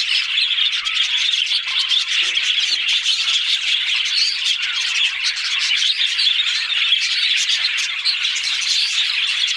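Budgerigars chattering steadily: a dense, unbroken stream of high chirps and warbles.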